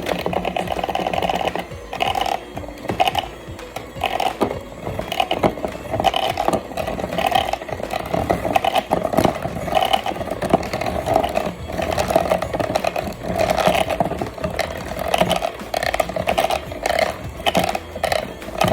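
A small electric kitchen appliance motor switched on and running, its level swelling and easing unevenly about once a second as it works.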